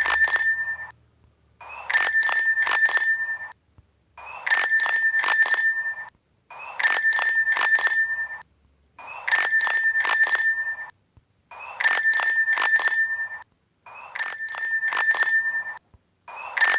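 Bicycle bell rung over and over, about seven times: each ring is a quick run of several strikes on a steady, clear bell tone, with short pauses between rings.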